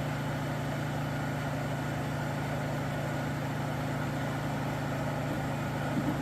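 Electric blender motor running steadily, mixing cake batter.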